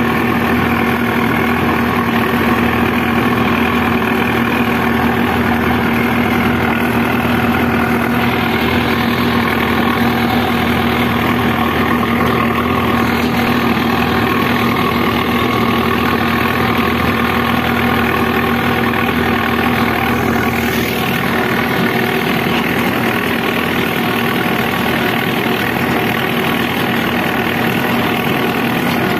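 Preet 6049 tractor's four-cylinder diesel engine running steadily at about 1500 rpm under full load, pulling a disc harrow through ploughed soil.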